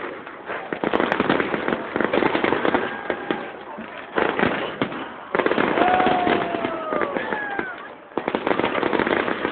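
Fireworks display: dense crackling and repeated bangs of bursting shells, with a few high gliding whistles in the second half.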